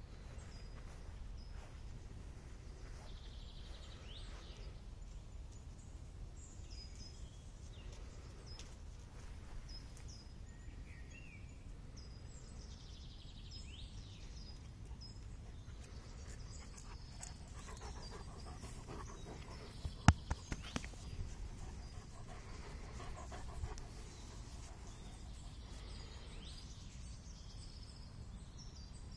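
Gordon Setter panting as it walks, over a steady low rumble of wind on the microphone and birds chirping. A single sharp click about twenty seconds in.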